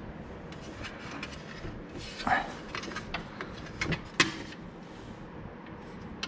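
Metal clamps of a bolt-on guard being worked onto a Teryx UTV's arm: scattered clicks and knocks, with a brief scrape about two seconds in and a sharp knock a little after four seconds, the loudest of them.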